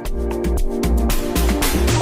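Electronic background music with a steady beat and pulsing bass, a swelling noise sweep building near the end.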